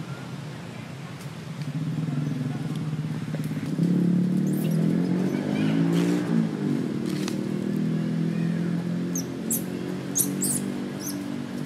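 A motor vehicle's engine running steadily, growing louder about four seconds in. Several short, high-pitched squeals come near the end, from the baby macaque being held by the adult female.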